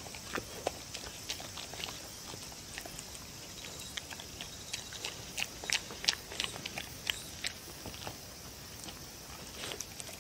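A dog licking and chewing small bits of soft food off a wooden board, making irregular wet clicks and smacks that come thickest about midway through.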